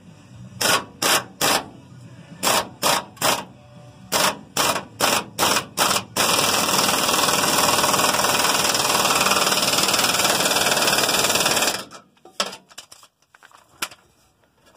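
Pneumatic impact wrench hammering in short bursts, about a dozen over the first six seconds, then running continuously for about five and a half seconds before stopping suddenly, working the nut off a rusted gas tank strap bolt. A few light clicks follow near the end.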